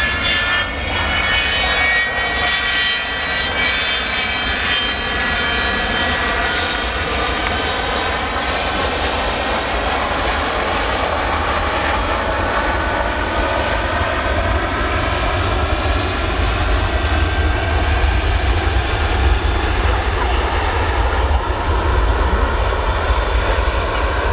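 Avro Vulcan XH558's four Rolls-Royce Olympus turbojets running as the bomber rolls out after landing with its brake parachute streamed. A steady jet roar with a low rumble beneath and several whining tones that slide slowly in pitch.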